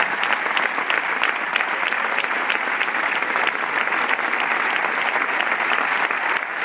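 Crowd applauding, a dense, steady patter of many hands clapping.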